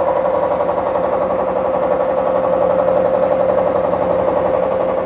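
Fishing boat's engine running steadily: an even drone with a strong hum and a fast, regular low throb.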